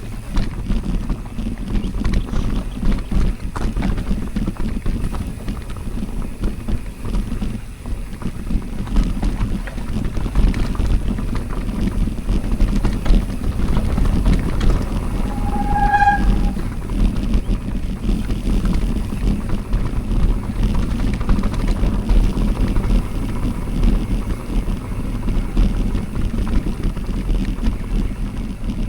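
Wind noise on the microphone and the rattle and rumble of a mountain bike rolling over rough ground, with many small knocks throughout. A brief pitched tone sounds about halfway through.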